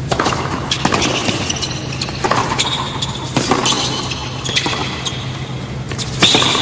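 Tennis rally on a hard court: sharp racket-on-ball hits and ball bounces about once a second, the loudest near the end. Short high squeaks of tennis shoes on the court come between the shots, over a steady low hum.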